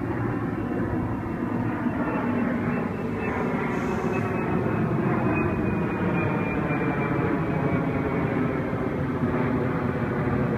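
Waratah A-set double-deck electric train moving slowly along the platform: a steady rumble from the wheels and underframe, with a whine of several tones from its traction equipment.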